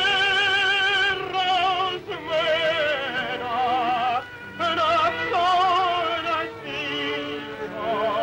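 Male tenor singing long held notes with wide vibrato over the orchestral accompaniment of a tango song, in phrases that break briefly about two, four and six and a half seconds in.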